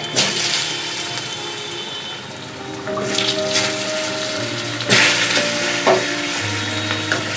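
Potato pieces frying in hot mustard oil, sizzling steadily, with a few sharp clinks of the spatula against the pan. Background music with held notes plays under it.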